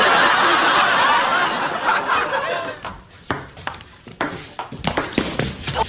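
Studio audience laughing for the first two and a half seconds, then a ping-pong ball being hit back and forth: a string of sharp clicks of ball on paddle and table.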